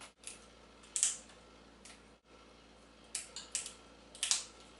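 African grey parrot biting and crunching a hard treat in its beak, giving short, sharp cracks: one about a second in, a quick run of several a couple of seconds later, and the loudest near the end.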